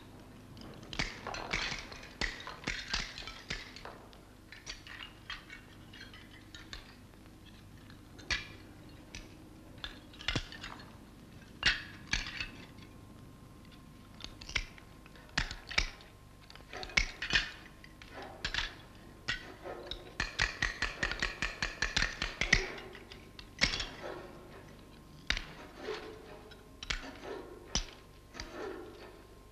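Ceramic and enamelled-lava mosaic tesserae being cut with a hand tool and set down: irregular sharp clicks and clinks, some coming in quick runs and a few ringing briefly.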